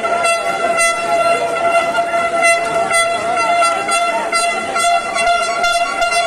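A horn sounding one long, unbroken, steady note over street noise, with sharp irregular clanks or strikes scattered through it.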